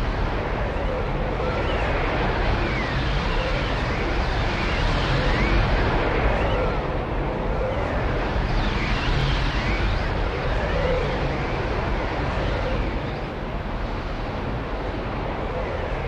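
Swirling vortex sound effect: a steady rushing noise with faint tones that sweep slowly up and down, wavering over and over.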